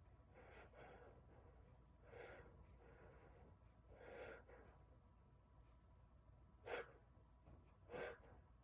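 A man's faint breathing as a sneeze builds: three soft breaths about two seconds apart, then two short, sharp catches of breath about a second apart near the end.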